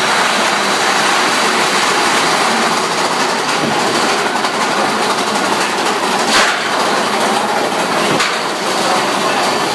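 Mine-train roller coaster car running on its track: a steady loud rattling rumble of wheels and cars, with two sharper knocks a little past the middle.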